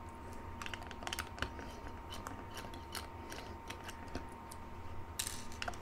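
Faint, scattered small clicks and ticks of a precision screwdriver turning small Phillips screws out of a plastic remote-control housing, with a brief scrape about five seconds in.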